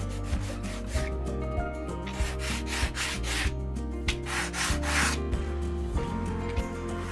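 Cut edge of a leather strap being rubbed on sandpaper laid flat, in several separate scraping strokes with short gaps between, to smooth the edge.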